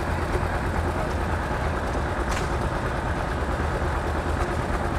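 Vintage John Deere two-cylinder tractor running steadily on its belt pulley, driving an antique flat-belt wood planer; the engine's low rumble mixes with the steady whir of the long flat belt and the planer's spinning cutter head.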